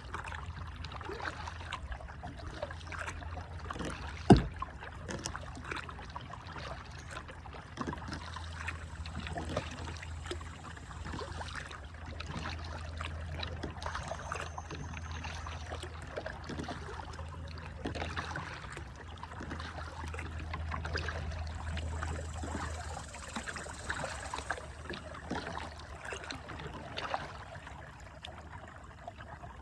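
Kayak paddling: paddle strokes splashing and water trickling off the blades, with a single sharp knock about four seconds in.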